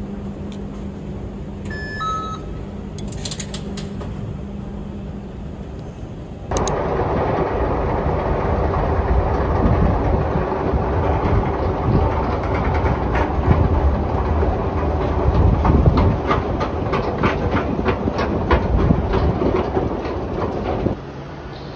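Train running, heard from inside the carriage: a steady hum with a short falling two-note chime about two seconds in. From about six seconds in, much louder running noise with rapid clicking takes over, and it drops back suddenly near the end.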